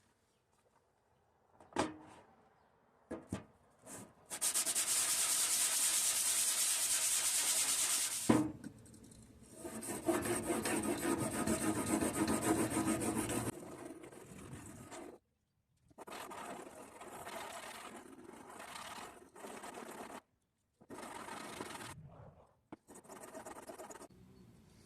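Sharpening stone of an Anystone fixed-angle sharpener rubbing back and forth along a clamped Spyderco pocket-knife steel blade, with a few light clicks first. The sharpening comes in spells: two long, louder runs of strokes, then quieter, shorter runs with pauses between them.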